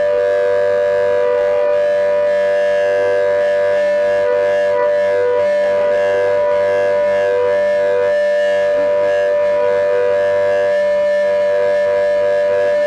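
Warning siren sounding one long, steady tone at a single held pitch.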